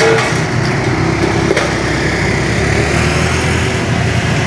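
Motorbike engine running close by over a steady hum of street traffic, with a single light click partway through.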